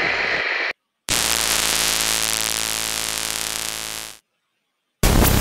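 Television static sound effect: a hiss that cuts off, then about three seconds of buzzing static that fades away, followed by a short loud burst near the end.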